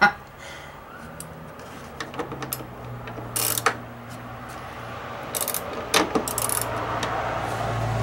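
Hand ratchet clicking in short runs as a screw is driven in, with a steady low hum underneath that grows louder toward the end.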